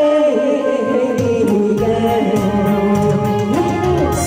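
A woman singing one long, slightly wavering held note into a microphone over backing music. The beat drops out as the note begins and comes back about a second in.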